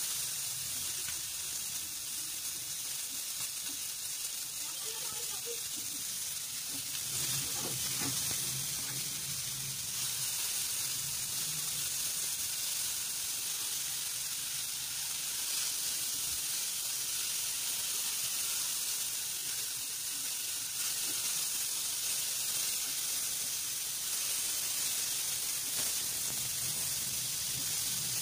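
Homemade longganisa sausages and garlic cloves sizzling in oil in a frying pan, a steady hiss.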